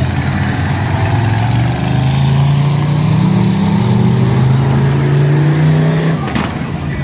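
Monster truck engine revving hard as the truck drives across the arena. The engine note climbs about two seconds in, holds, then drops off near the end.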